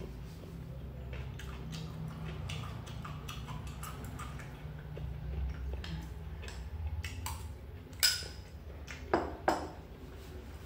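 Metal spoon clinking and scraping against a small porcelain bowl of salad in small scattered clicks, with one sharp clink about eight seconds in and two louder knocks about a second later.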